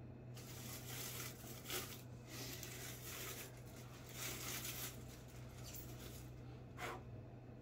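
Packing material rustling and crinkling in several uneven bursts as a statue part is unwrapped, with a sharper crackle about two seconds in and another near the end.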